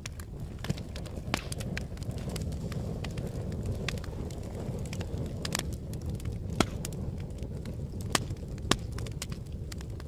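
Wood fire crackling: irregular sharp pops and snaps over a low, steady rush of burning flames, with a few louder pops in the second half.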